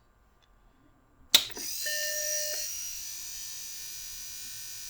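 A sharp click, then the small eject motor of a Macintosh 800K floppy drive (M0131) runs steadily, turning its gear train, with a brief steady tone soon after it starts. The eject gearing has just been freed of binding.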